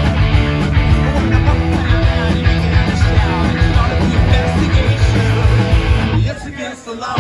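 Loud rock music driven by guitar, with a steady heavy low end. It breaks off for about a second near the end, then kicks back in at full volume.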